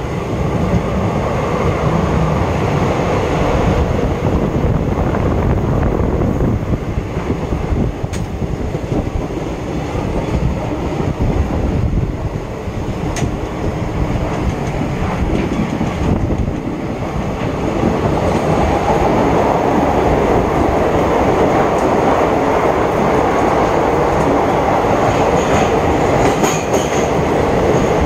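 Express train running, heard from an open coach doorway: a steady, loud rumble of wheels on the rails, fuller in the second half, with a brief high wheel squeal a few seconds before the end.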